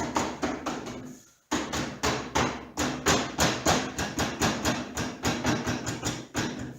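Rapid, even knocking on plywood, about three or four knocks a second, with a short break about a second in: the friction-fit plywood inserts in a contractor table saw's wings being tapped.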